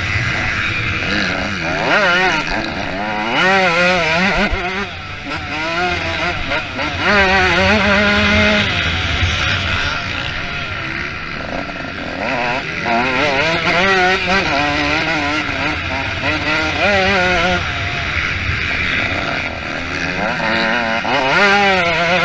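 Several motocross bikes racing, their engines revving up and dropping back over and over as they accelerate and shift, with more than one bike heard at once.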